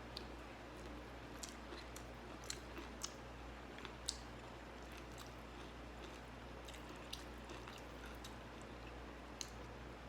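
A person chewing food close to the microphone, a meal of rice and vegetables with a fish-paste dip, with scattered short crunches and clicks, the sharpest about four seconds in, over a faint steady hum.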